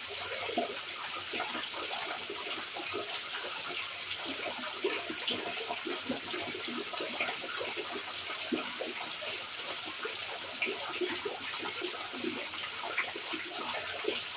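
Steady rain falling: a constant hiss with many scattered heavier drips and splashes, and no thunder.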